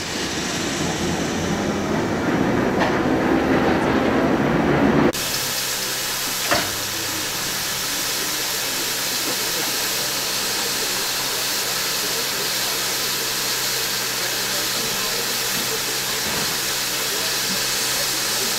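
Steam locomotive rumbling with occasional clanks as it stands on a moving turntable. About five seconds in this gives way abruptly to a steady, loud hiss of steam jetting out low at the front of a steam locomotive, with a single knock shortly after.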